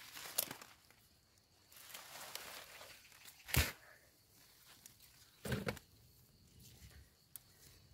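Hand rustling and crackling among radish leaves, loose soil and plastic mulch as a pulled radish's hole is filled in, with two louder sharp crackles about three and a half and five and a half seconds in.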